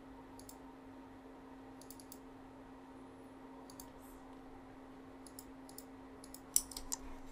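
Computer mouse clicking, a few faint single and double clicks, then louder keyboard key presses starting near the end, over a steady low hum.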